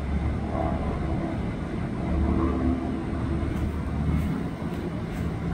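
Low, steady engine rumble with a faint hum over it, like a vehicle running close by, and a few faint ticks in the second half.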